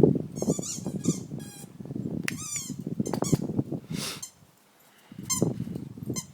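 Dog's squeaky toy squeaking several times in short high bursts as the dog chews and plays with it, over low rustling and knocking.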